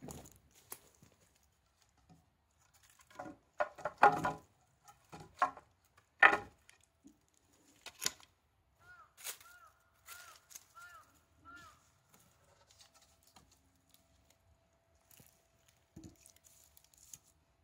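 Scattered sharp rustles and knocks, loudest about four and six seconds in. About halfway through come four short chirps that rise and fall.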